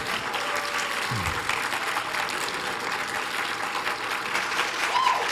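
A church congregation applauding steadily.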